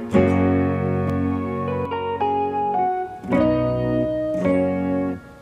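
Instrumental background music: sustained chords and melody notes that change every second or so.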